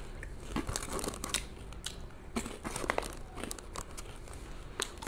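Garrett Popcorn paper bag crinkling and rustling in the hands, with irregular sharp crackles as popcorn is taken from it.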